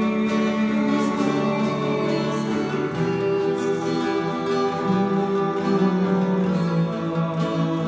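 A hymn accompanied on acoustic guitar: strummed chords, with singing over them. The chord changes about three seconds in.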